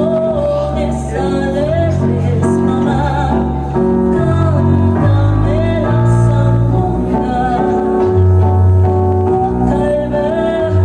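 Music with a singing voice over held bass notes that change every second or two.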